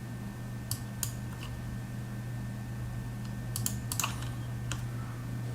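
A few scattered clicks and taps of a computer keyboard and mouse, with a small cluster near the end, over the steady low hum of the running desktop PC.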